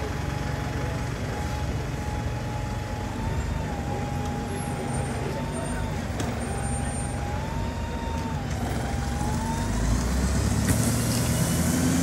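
Stagecoach single-decker bus's diesel engine running as the bus moves slowly off, with a whine that rises and falls several times. The noise grows louder near the end.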